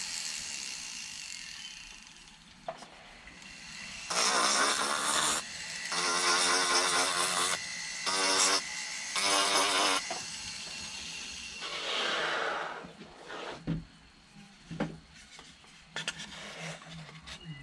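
Pedal-controlled rotary carving tool with a burr grinding wood, run in about five short bursts, its whine wavering in pitch as the burr bites. A few small clicks follow near the end.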